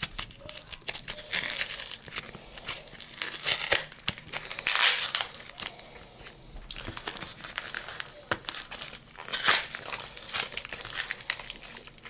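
Small kraft-paper mailing envelope being handled and torn open by hand, paper crinkling and rustling in irregular bursts, the loudest about five seconds in and again near nine and a half seconds.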